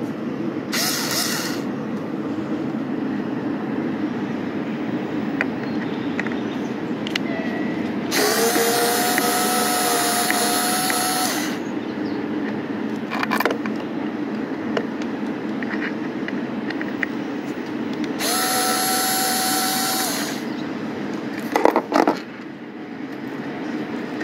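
Small cordless electric screwdriver driving self-tapping screws into a plastic window frame. Its motor whirs at a steady pitch in two runs of about three and two seconds, with a short burst about a second in and a few sharp clicks between runs, over a steady background noise.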